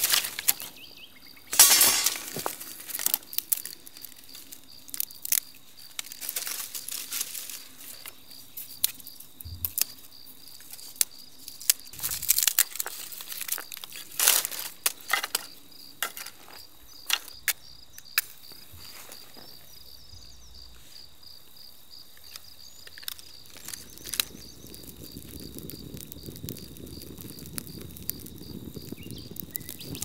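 Dry sticks and twigs snapping and clattering as a campfire is laid by hand, the sharpest snaps near the start and again about halfway. An insect trills steadily in the background, and in the last few seconds a low rushing noise builds as the kindling starts to burn.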